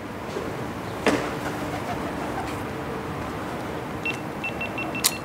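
Steady outdoor background noise, broken by a sharp crack about a second in and another sharp click near the end. Just before the second click there is a short run of quick, high beeps.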